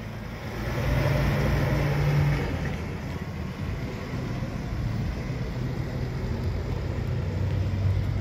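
DAF XF truck with a refrigerated trailer driving past and away, its diesel engine running with a steady low drone that gets louder about a second in, then eases and holds steady as the rig moves off.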